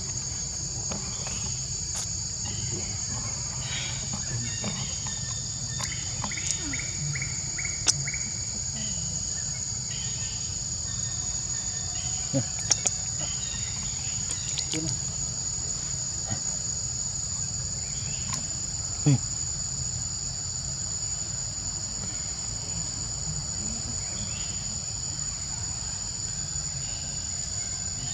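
A steady, high-pitched drone of insects shrilling, with a few sharp clicks breaking through: a pair about midway and one more a little later.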